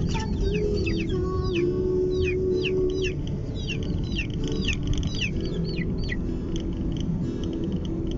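Bird chirping: short high calls falling in pitch, several a second, over the steady low rumble of the car on the road.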